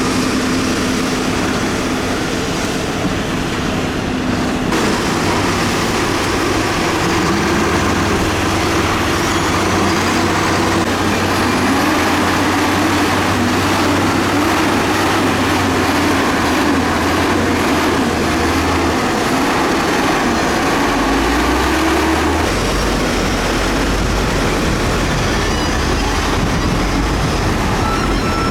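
Heavy diesel engines of a road roller and motor grader working in a mud recovery, running loud and steady, with the engine note shifting pitch several times as the throttle changes.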